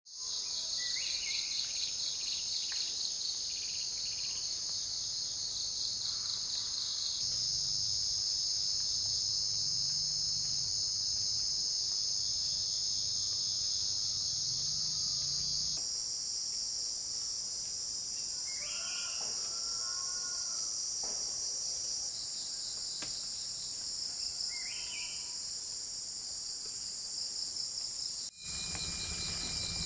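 Dense, steady, high-pitched chorus of forest insects, with a bird giving short calls now and then. The chorus shifts abruptly in tone two or three times.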